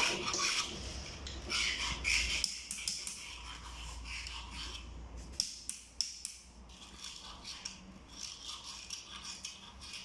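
Irregular hand rubbing and scraping on a part, with a few light clicks.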